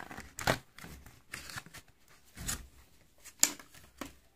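A replacement smartphone battery being slid out of its plastic cover: several short crinkles and scrapes of plastic, about a second apart.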